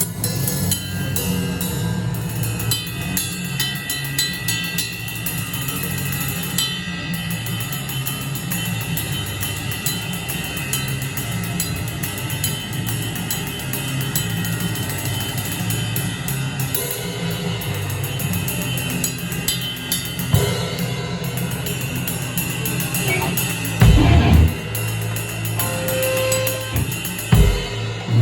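Drum kit played during a sound check: a dense run of cymbal ticks over a steady low hum, with two heavy low hits near the end.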